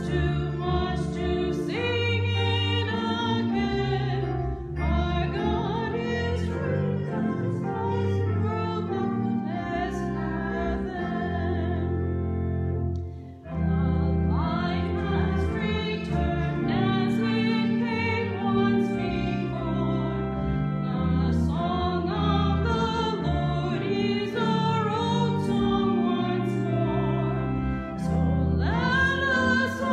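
A hymn sung with instrumental accompaniment, with held bass notes under the voice. There is a short break in the music about halfway through.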